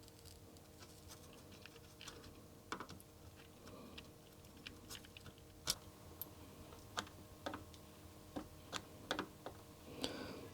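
Faint, irregular small clicks and taps of desoldering work on a computer circuit board as a chip is freed, over a faint steady hum.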